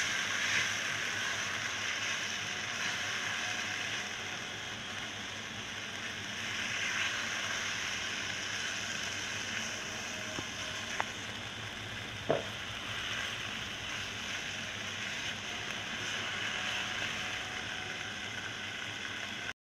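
Minced meat (keema) sizzling steadily in hot oil in a non-stick wok while it is stirred with a spatula, the meat being fried (bhuna). Two short knocks come a little past the middle.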